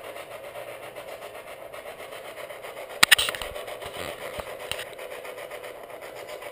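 Spirit box sweeping through radio stations: steady static with a quick, even flutter, broken by a sharp crack about three seconds in and a smaller click a little later.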